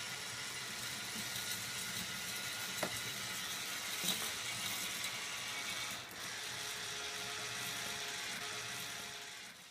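A faint, steady mechanical whir of a small motor, with a few light clicks about three and four seconds in; it fades out just before the end.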